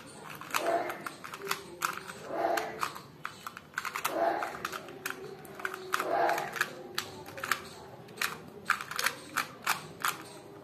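Plastic clicks and clacks of a 2×2 puzzle cube's layers being turned quickly by hand, in irregular runs of sharp turns, with four softer, longer low sounds in between.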